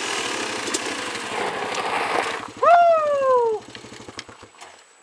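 An off-road vehicle's engine idling with a steady low putter, cutting out near the end. About two and a half seconds in, a loud whoop from one of the riders rises sharply and slides down in pitch over about a second, louder than the engine.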